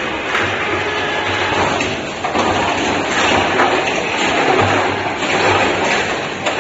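Automatic bottle filling and capping machine running: a loud, steady mechanical din with bottles moving along its conveyor.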